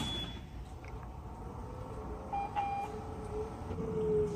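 Short electronic beeps from the John Deere 8335R tractor's cab electronics as its power comes on and the monitor boots, over a steady low rumble.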